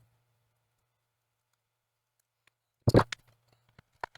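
Near silence, then about three seconds in a short cluster of sharp clicks and knocks, with a single click near the end: plastic laptop parts being handled and fitted back together.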